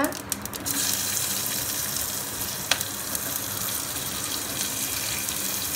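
Sliced onions dropped into hot ghee and oil in an aluminium pressure cooker, sizzling steadily. It starts suddenly with a loud hiss under a second in, after a few sharp crackles of the spices. There is a single sharp click near the middle.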